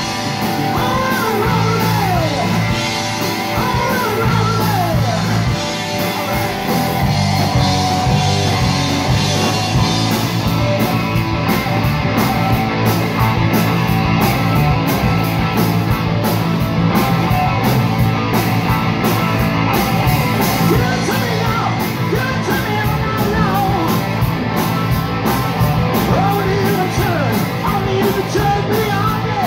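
Live rock band playing loud: electric guitars and keyboards over a steady drumbeat.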